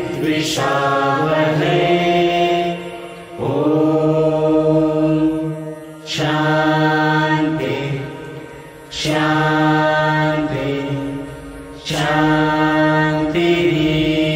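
Men's and women's voices chanting a prayer together, in long held phrases of about three seconds each with short breaks between them.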